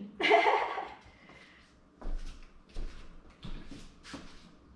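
Plant pots and a tray being picked up and handled: a scraping clatter about a second long at the start, then several lighter knocks.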